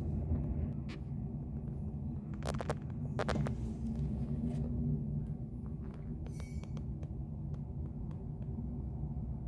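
Steady low rumble of distant jet aircraft engines at a busy airport, with a few sharp clicks about two and a half to three and a half seconds in and a brief hiss about six seconds in.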